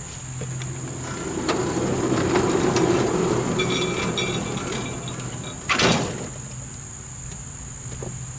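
Frontier OS23 band sawmill's gas engine running, swelling into a louder, rougher sound for a few seconds under load as the blade cuts a log, with a sharp knock about six seconds in. The engine seems to be losing a lot of power, which the owner suspects is old gas. Crickets chirr steadily in the background.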